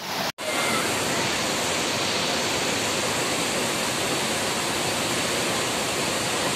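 Steady rush of a flowing river, an even hiss with no break after a brief dropout just after the start.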